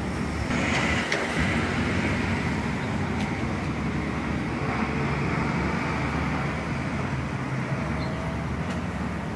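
Street traffic noise: a steady low engine hum under a wash of road noise. A louder passing vehicle swells about half a second in and fades away over the next several seconds.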